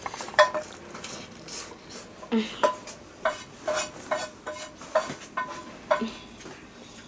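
Electronic sound effects from an iPad: a string of short blips at the same two pitches, roughly two a second, with a couple of brief falling tones among them.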